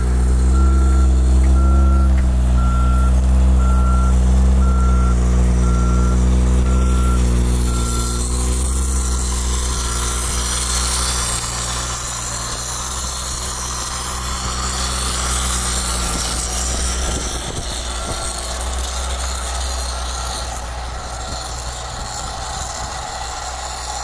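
A heavy vehicle's engine running steadily, with a reversing alarm beeping about once a second; the beeps grow faint after about ten seconds while a windy hiss rises.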